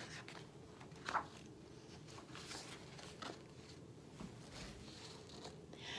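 A page of a picture book turned by hand: a short paper rustle about a second in, then a few faint rustles and soft clicks over quiet room tone.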